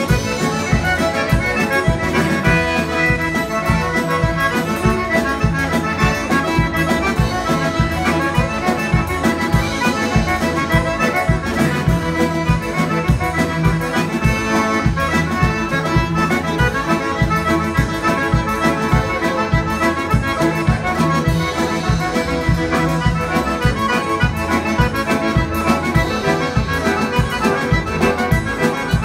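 Live Cajun band music led by a Cajun button accordion, with fiddles and drums keeping a steady beat.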